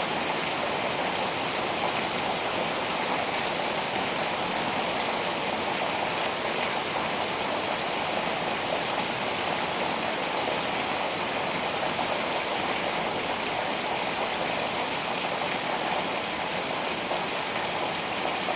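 Steady rainfall, an even hiss of rain with no breaks or thunderclaps.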